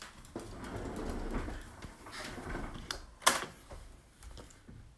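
Hands brushing and shuffling over a paper sketchpad and tabletop, a soft rustle that fades out, followed by one sharp tap a little over three seconds in.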